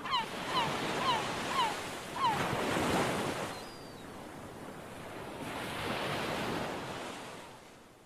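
Waves washing onto a shore, swelling twice and then fading away, with a few short falling chirps over the first two seconds.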